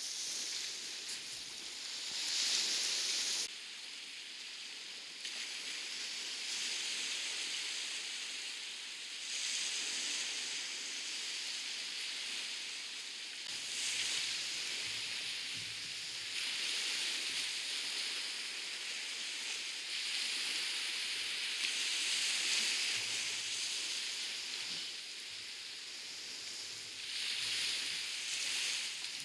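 Small waves washing onto a sandy shore, a steady hiss that swells and falls back every few seconds as each wave runs in.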